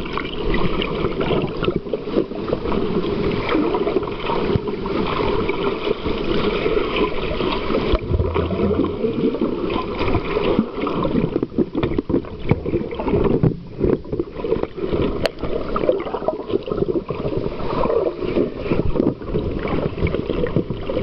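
Rough ocean water churning and sloshing around a camera held underwater, heard muffled, with many small crackles running through a steady rush.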